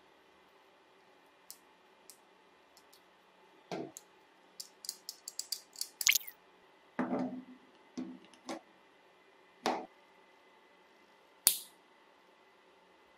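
Small metal handling sounds: a quick run of clicks and short scrapes as a snap-off utility knife blade picks at a brass padlock's glue-plugged keyhole. Near the end, one sharp click as a lighter is struck.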